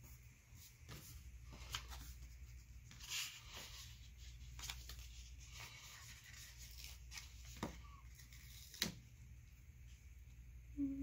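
Paper pages of a sticker pad flipped and handled: soft rustling with scattered light clicks and taps, the sharpest tap near the end.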